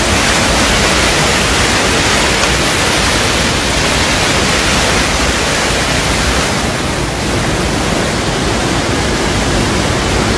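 Muddy floodwater rushing down a street in a fast torrent: a loud, steady rushing of water.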